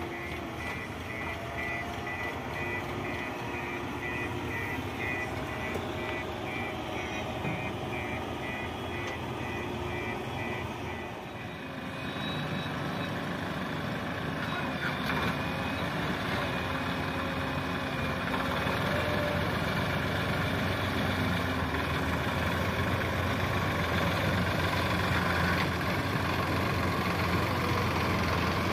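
JCB 3DX backhoe loader's reversing alarm beeping steadily, a little more than once a second, over its running diesel engine. About halfway through the beeping stops and louder farm-tractor diesel engine noise takes over, rising slowly as the tractors work through the mud.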